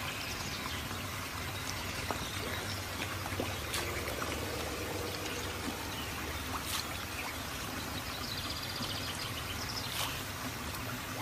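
Steady rush of running water, like a garden waterfall pouring into a pond.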